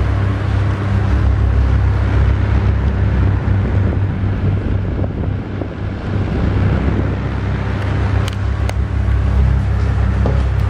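Panasonic FV-25TGU2 10-inch ceiling exhaust fan, the early six-blade version, running at speed: a loud, steady motor hum under the rush of air through the grille. Two brief ticks come about eight seconds in.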